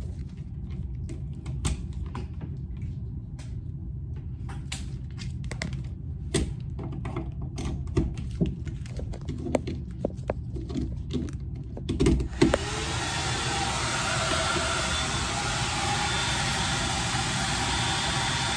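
Scattered clicks and knocks over a low rumble. About twelve seconds in there is a louder knock, and then a hand-held hair dryer switches on and runs with a steady blowing noise.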